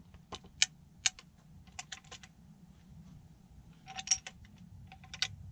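A series of sharp metallic clicks, some in quick groups of two or three, from a Springfield Model 1884 trapdoor rifle's action being worked: the hammer and the hinged breechblock being handled to load a round.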